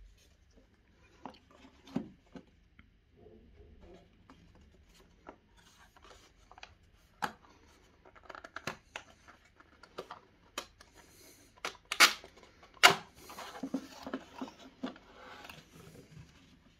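Cardboard box being handled and opened by hand: scattered scrapes, taps and rustles of the cardboard and its flaps, with two sharp, loud snaps close together about three quarters of the way through.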